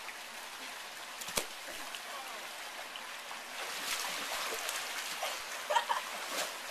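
Swimming-pool water splashing as two girls scramble onto a foam float, over the steady trickle of a pool waterfall. A sharp click comes about a second and a half in, the splashing grows busier from about halfway, and brief laughter comes near the end.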